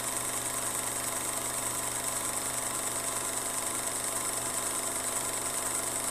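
A steady mechanical running hum and whir with a constant high hiss, unchanging throughout, like a motor running at an even speed.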